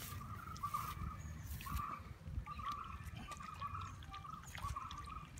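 Water trickling and gurgling as a cast net full of small fish is drawn in through the shallows.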